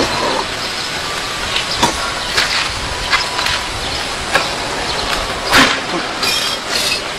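Red clay bricks cracking under bare-hand palm strikes: several sharp knocks at irregular intervals, the loudest a little over five seconds in, over a steady background hiss.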